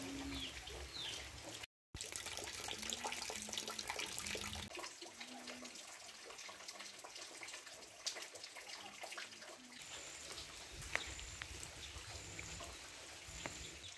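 Rain falling, with drops pattering and splashing into puddles and dripping. The sound cuts out for a moment about two seconds in.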